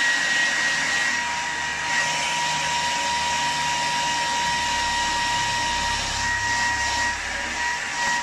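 Old, worn handheld hair dryer running steadily: a rushing stream of air with a steady high whine, swept back and forth over a silk screen frame to dry its coating.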